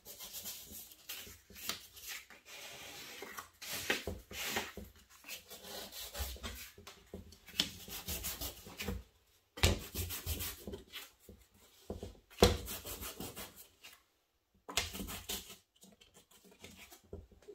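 A piece of corrugated cardboard scraped and dragged across paper on a wooden easel board, spreading paint in irregular rubbing strokes with short pauses. A few sharper knocks come in the second half.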